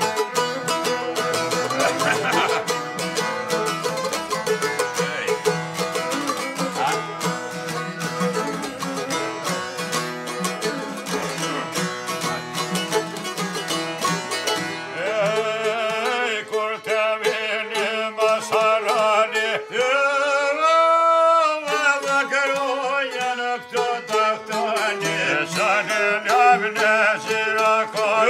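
Albanian folk music on long-necked lutes, a çifteli and a sharki, playing a fast plucked instrumental passage. About halfway through, a man's voice comes in singing the melody, with one long, wavering held note.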